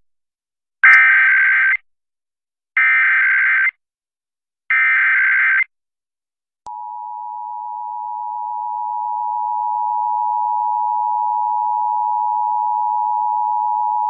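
Emergency Alert System tones opening a Required Monthly Test: three one-second bursts of SAME digital header data, evenly spaced, then about halfway through the EAS two-tone attention signal (853 and 960 Hz) comes in as a steady dual tone, growing a little louder over its first few seconds.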